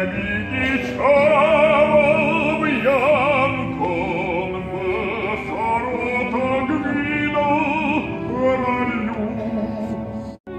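Operatic singing with strong vibrato and long held notes, accompanied by an orchestra playing live in the pit; the sound cuts out briefly near the end.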